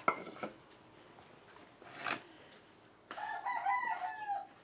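Rooster crowing once, about three seconds in, a wavering call lasting well over a second.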